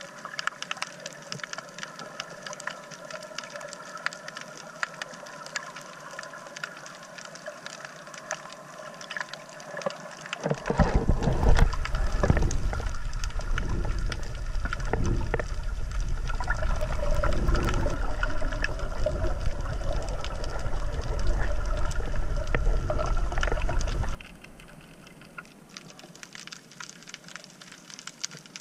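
Underwater sound from an action camera on a coral reef: a constant fine crackle of clicks, typical of snapping shrimp, over a steady hum. From about ten seconds in to about twenty-four seconds, a much louder low rushing of moving water covers it, then cuts off suddenly.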